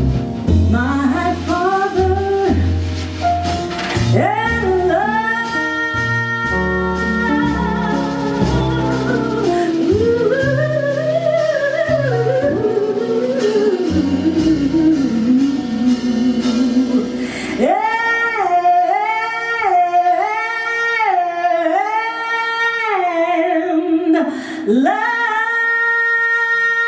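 Female jazz vocalist singing a slow ballad with a small jazz band, bass and guitar audible underneath. About two-thirds of the way through the band drops out and she carries on alone, holding notes with a wide vibrato in an unaccompanied cadenza.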